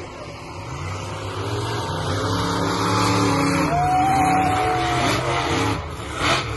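Monster truck engine revving hard and climbing in pitch, loudest about three to four seconds in as the truck launches over a row of cars, then easing off. A brief loud burst just before the end.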